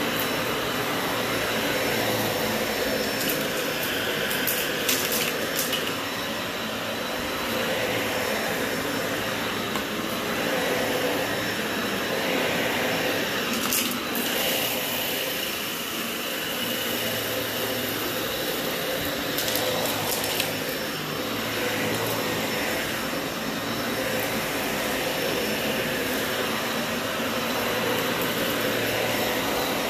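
Dyson Ball upright vacuum cleaner running on carpet, its steady whir swelling and dipping as it is pushed back and forth. A few short crackles come through on some strokes.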